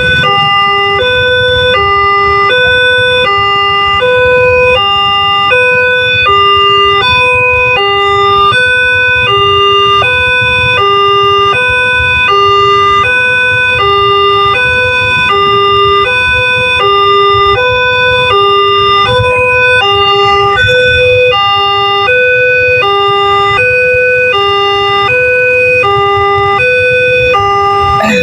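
Multec-type electronic railway level-crossing warning siren sounding continuously: a loud repeating two-tone pattern that alternates between a lower and a higher note, about one low-high pair per second.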